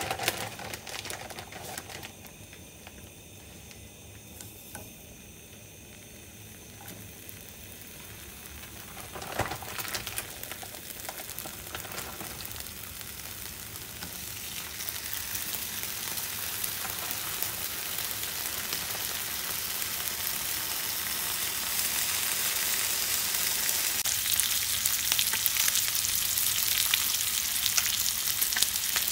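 Food frying in a pan, the sizzle growing steadily louder from about ten seconds in, just after a brief knock.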